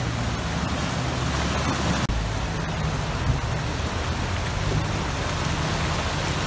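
Jeep Wrangler engine running low and steady as it fords a fast river, with the loud rush of churning water over it. The sound drops out for an instant about two seconds in.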